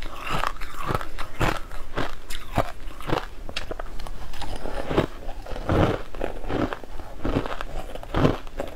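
Coloured crushed ice being bitten and chewed close to the mouth, in loud, irregular crunches about every half second.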